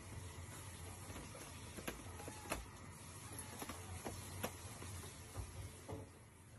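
Corrugated cardboard scratcher being worked at by a cat: faint, irregular crackling ticks of the cardboard over a low steady hum.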